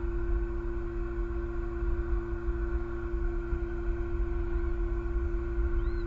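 Steady outdoor nest-camera microphone noise: a low rumble under a constant hum of several fixed pitches. Faint high bird chirps come in right at the end.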